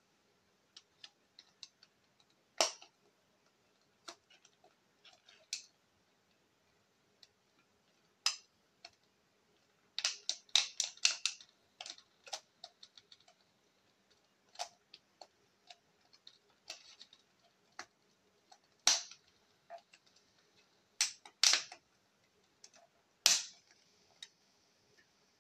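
Sharp plastic clicks and snaps of Blu-ray discs being worked on and off the hubs of a digipak's plastic trays, with light handling of the card packaging. A quick run of clicks comes about ten seconds in, and single louder snaps come several times in the second half.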